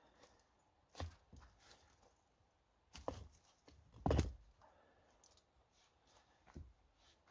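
A few separate knocks and crunches, four in all, the loudest about four seconds in.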